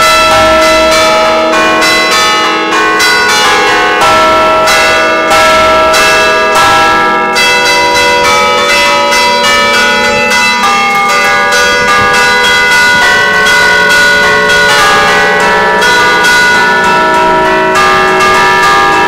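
Five bronze church bells in Mi3 calante (a slightly flat E3), cast by Luigi Ottolina in 1961, rung festively from a lever keyboard. They strike in rapid succession, close up and loud, with the long ringing tones overlapping throughout.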